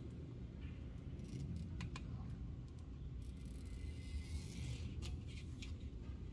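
Faint ticks and a short rasp of 1/16-inch fineline masking tape being pulled off the roll and pressed down by hand, over a low steady room hum.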